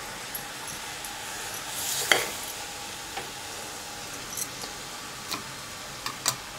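Vegetables, tomatoes and dalia sizzling in oil in an open pressure cooker over a gas flame, with a few light clicks and scrapes of a spatula stirring against the metal pot, the loudest about two seconds in.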